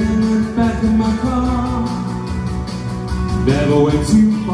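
Live band music: a singer holding long notes that slide between pitches, over guitar and a steady beat.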